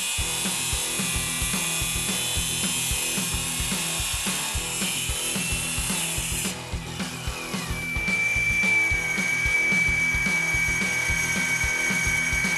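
Tile and stone cutting machine running, sawing with a steady hiss; about halfway through the hiss stops and a steady high whine carries on.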